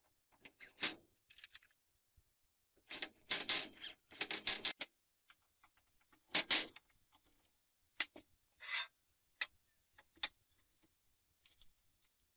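Short clinks, scrapes and rubs of metal parts and tools being handled on a steel-topped workbench. The sounds come in separate bursts with quiet gaps; the busiest stretch is a few seconds in, and there is a sharp burst about six and a half seconds in.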